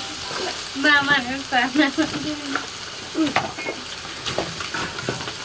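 Chicken pieces frying and sizzling in a large metal wok while a long ladle stirs them, with small scrapes and clicks of the ladle against the pan. A voice is heard briefly over it about a second in.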